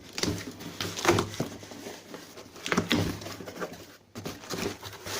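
Cardboard shipping box being handled, with rustling, scraping and several sharp knocks, clustered about a second in and again around three seconds in.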